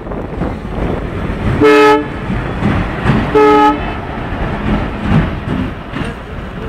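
Two short horn toots about a second and a half apart, each a brief blare with a chord of several tones, over a steady low rumble.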